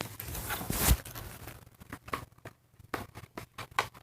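Cardboard box and plastic packaging rustling and scraping as a doll is worked out of its box, loudest about a second in, then scattered light clicks and rustles.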